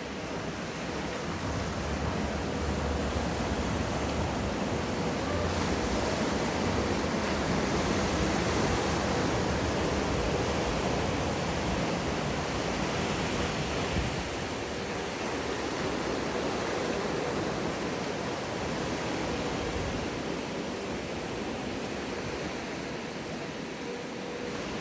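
Breaking wave and rushing whitewater in an artificial surf wave pool. It swells over the first few seconds and eases off in the second half, with a faint steady hum beneath it.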